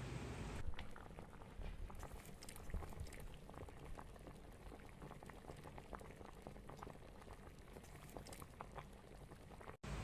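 Tom yum soup boiling in an electric rice cooker's pot: many small bubbles popping in a dense patter. It starts about half a second in and cuts off abruptly just before the end.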